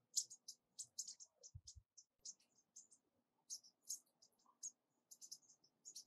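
American bushtits giving their contact calls: a quick, irregular stream of very short, thin, high-pitched notes, several per second.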